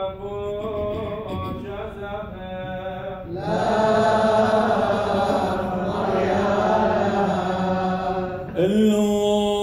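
Church of the East liturgical chant: a single voice chants on a few held notes, then about three and a half seconds in several voices join in, louder and fuller. Near the end a single voice takes the chant up again.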